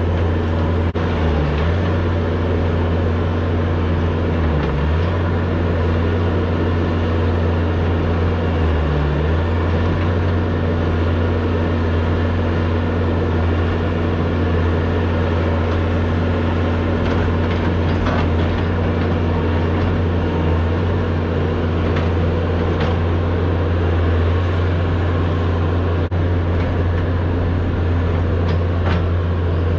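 Bobcat S570 skid steer's diesel engine running steadily under working load while digging a trench in rocky soil. The engine note dips briefly three times in the first ten seconds.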